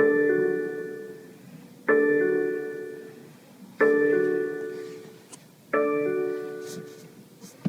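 BMW in-car warning gong chiming four times, about two seconds apart: each chime is a bright struck chord of several tones that starts sharply and fades away. A short click near the end.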